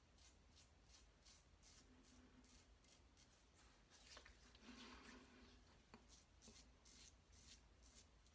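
Faint scraping of a Parker 69CR safety razor with a Voskhod blade cutting through lathered stubble in a run of short strokes, a few a second.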